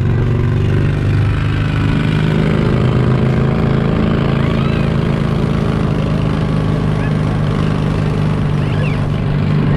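Engine of the vehicle towing a train of barrel-car ride seats, running steadily as it pulls the train along, with a few faint high squeaks or voices now and then.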